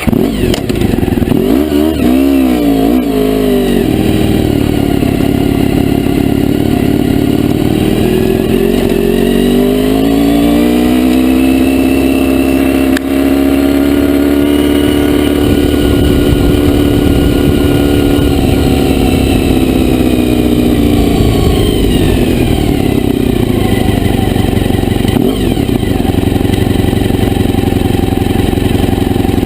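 Honda VFR400R V4 motorcycle engine running and being revved: a few quick blips near the start, then the revs climb and hold high for several seconds before dropping back and running on at lower revs.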